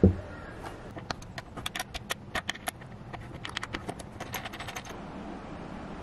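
A dull thump, then a quick, irregular run of sharp metallic clicks lasting several seconds: a hex key clicking against the bolts and metal bracket of a sofa frame as it is turned and reset.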